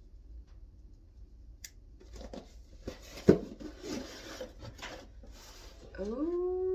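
Hands rummaging through paper packaging and items in an opened cardboard box: rustling and handling noises, with one sharp knock a little past three seconds in. Near the end a woman gives a drawn-out 'ooh' that rises in pitch and then holds.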